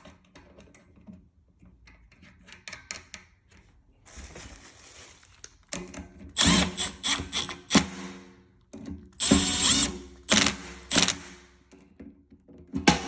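Cordless power drill/driver driving screws, in several short bursts of motor whir in the second half, after faint handling clicks.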